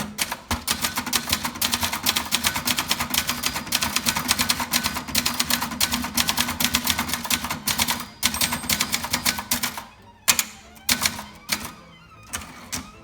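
1978 Brother Charger 11 manual portable typewriter being typed on fast, with a rapid stream of key strikes for about ten seconds. After that the strokes become slower and scattered, with one sharp, loud strike just after ten seconds.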